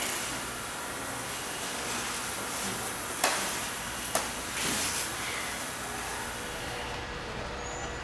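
Steady machinery and air noise of a factory assembly line, with two sharp clicks a little after three and four seconds in and a short hiss just after. The high hiss drops away near the end.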